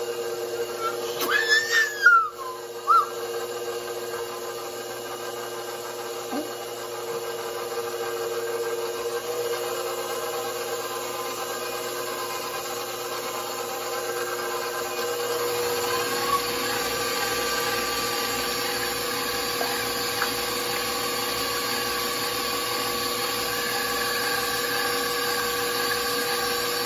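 Electric stand mixer running, its wire whisk beating eggs in a stainless steel bowl: a steady motor whir with a few brief squeaks about two seconds in. About halfway through it grows a little louder and takes on a low pulsing.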